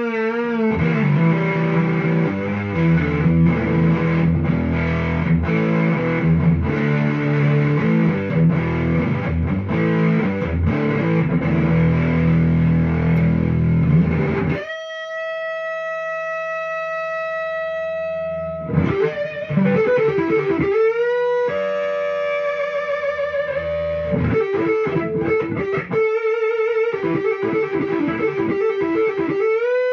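Electric guitar (a Strat) played through a Fuzz Face fuzz pedal and a 1965 Kent amp, with a thick, distorted tone. It plays dense chords and riffs, then about halfway through holds one long sustained note, then moves into lead lines with wide vibrato and bent notes.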